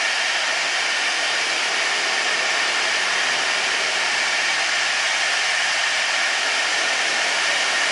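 Rear-mounted twin turbofan engines of a business jet running at taxi idle: a steady, even jet hiss and whine that does not change.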